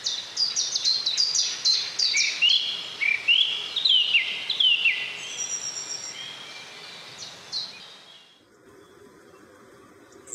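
Small songbirds calling: rapid high chirps, joined about two seconds in by lower whistled notes that step up and down, all fading out about eight seconds in.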